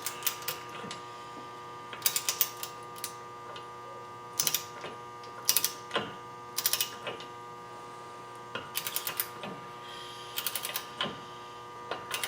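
Ratchet wrench clicking in short bursts of quick clicks, one every second or two, turning a seal-installer fixture that presses a new pinion seal into the differential housing until it bottoms out.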